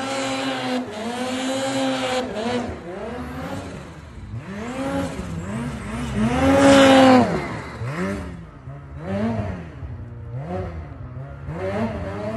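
Lynx snowmobile engine held at steady high revs, then revved up and down again and again as the sled is ridden through deep powder. It is loudest about seven seconds in as it passes close, then grows fainter.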